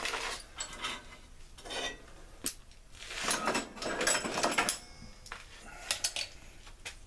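Metal objects clinking and clattering as someone rummages through them searching for bolts, with a sharp click about two and a half seconds in and a longer rattle from about three to five seconds.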